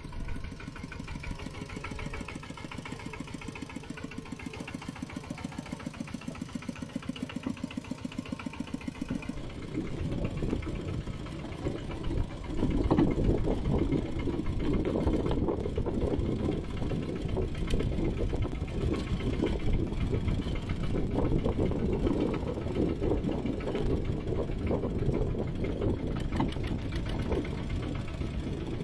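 Mini tractor engine chugging with steady, evenly spaced beats. About ten seconds in it turns louder and rougher, and louder again a few seconds later, as the engine speeds up and runs on.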